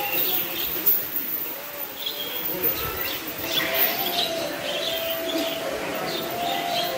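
Birds chirping, in short scattered calls.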